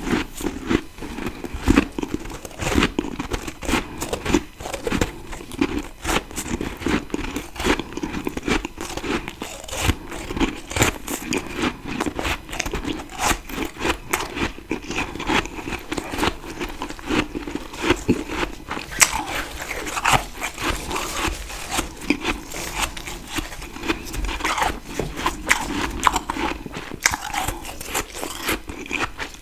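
Close-up biting and chewing of freezer frost: a dense, irregular run of crunching and crackling bites that continues throughout.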